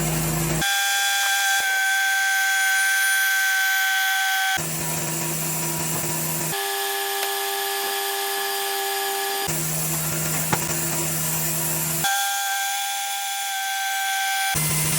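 Cooks AC36 band sawmill running and sawing white oak, a steady machine drone with sustained tones that changes abruptly every few seconds as clips are cut together.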